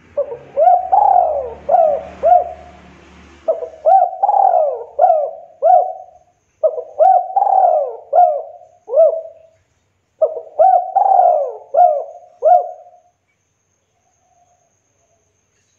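Spotted dove cooing: four phrases, each of about six quick coos that rise and fall in pitch, with short pauses between phrases.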